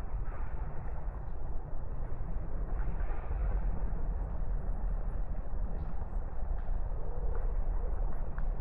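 Steady low rumble of distant city traffic, with faint high chirps above it.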